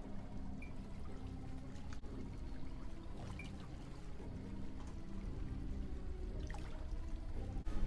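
Hot tub water bubbling and churning from the jets, a steady watery wash.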